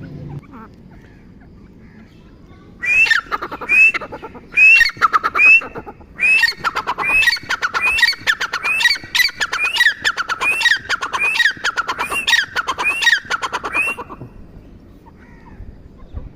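Teetar (partridge) calling: after a few quiet seconds a long series of loud, repeated ringing calls, first a few separate rising notes, then faster repeated phrases that keep going for about ten seconds before stopping.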